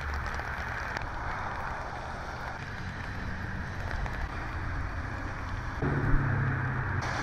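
Steady outdoor noise of wind on the microphone. Nearly six seconds in, a low rumble starts, with a short sharp knock in it.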